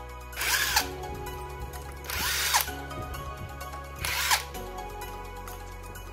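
Cordless impact wrench spinning out the clutch pressure-plate bolts on a motorcycle engine: three short bursts about two seconds apart, each motor whir rising and falling in pitch. Background music runs underneath.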